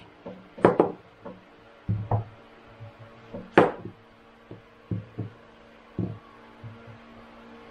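Chef's knife cutting rounds off a large zucchini on a plastic cutting board: uneven sharp knocks as the blade goes through and hits the board, the loudest about a second in and near the middle, with softer taps between. A faint steady hum underneath.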